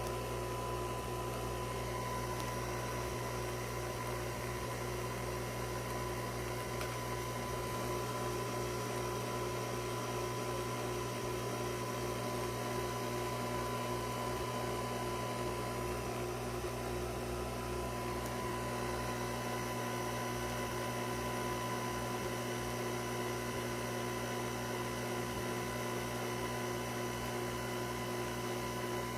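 Nespresso capsule coffee machine's pump running with a steady hum while it brews.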